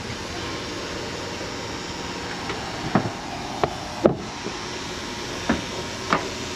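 Steady hum and hiss of running HVAC air-handling equipment, with several sharp knocks scattered through the middle and latter part.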